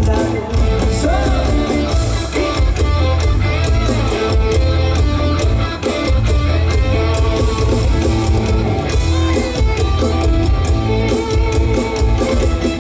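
Instrumental break of a Thai luk thung pop song, played loud over stage speakers, with a heavy bass beat, regular drum hits and guitar.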